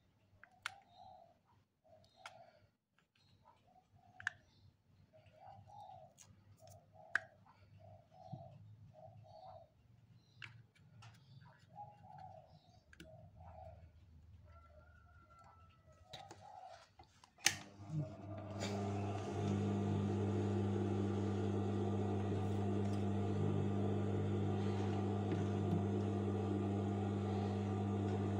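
A dove coos over and over in the background while small clicks of handling sound. About 18 seconds in, after a sharp click, an industrial sewing machine starts and runs steadily with a loud, even hum.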